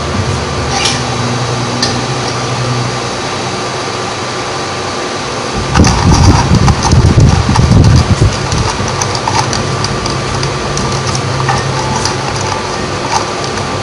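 Soundtrack of a short animation played over room speakers: a steady low drone, with a loud deep rumble lasting about two seconds near the middle and scattered clicks.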